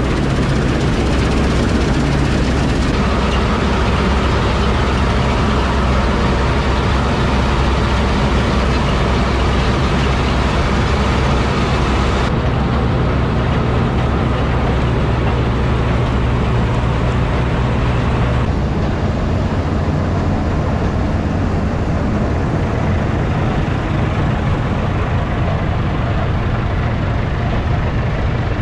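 Heavy diesel engine of harvest machinery running steadily and loud, its sound changing abruptly a few times.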